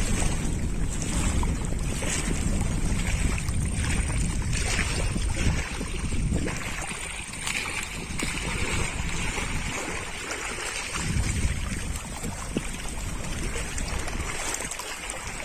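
Wind gusting on the microphone over choppy river water, with a low, uneven rumble that swells and eases.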